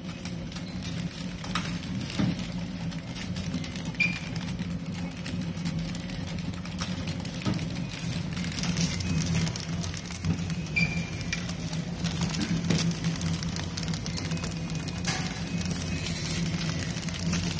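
Flow wrap packing machine running: a steady mechanical hum under a continuous crackling rustle of the metallised foil film being drawn through the former, with occasional sharp clicks.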